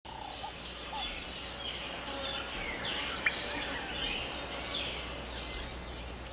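Outdoor ambience of many small birds chirping and twittering, short quick calls overlapping, with one louder sharp chirp about three seconds in.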